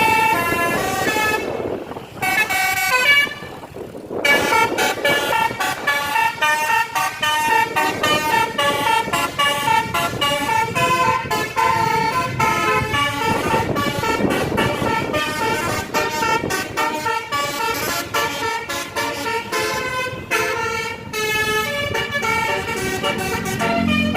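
Indonesian tour bus's basuri-style telolet horn playing a fast multi-note tune, the notes changing several times a second. It breaks off briefly twice in the first four seconds, then plays on without a pause.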